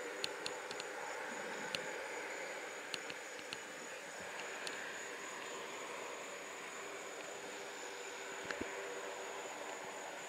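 Distant military transport aircraft engines droning steadily across the airfield, with a faint steady high tone running through it. A few sharp ticks come in the first half.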